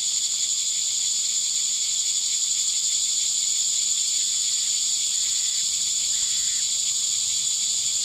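Steady high-pitched chorus of insects buzzing without a break.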